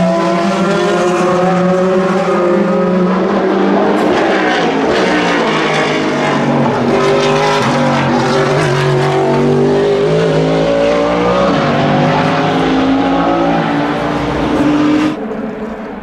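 NASCAR Next Gen Chevrolet Camaro ZL1 race car's pushrod V8 engine at racing speed, its pitch climbing as it pulls through the gears and falling as it backs off, loud as the car passes close. About 15 seconds in the sound cuts abruptly to a quieter, more distant engine.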